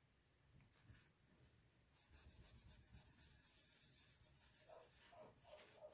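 Faint quick back-and-forth rubbing of hands smoothing a freshly glued cardstock panel down onto a card base, starting about two seconds in. A few short paper scrapes come near the end.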